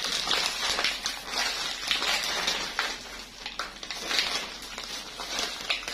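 A plastic poly mailer being torn open and handled, crinkling and rustling with irregular sharp crackles.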